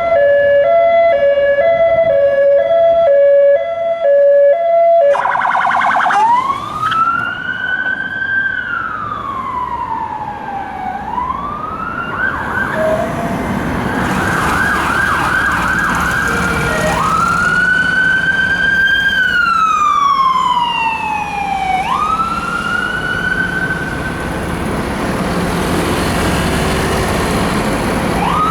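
British emergency vehicle's electronic two-tone siren alternating between a low and a high pitch. About five seconds in it cuts to another siren sweeping slowly up and down in a wail, switching to a fast yelp for a few seconds midway, over engine and road noise.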